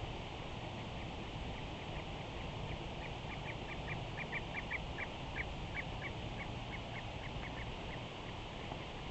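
A bird calling a quick series of short, high notes, about four a second, starting about three seconds in and stopping near the end, over a steady low outdoor rumble.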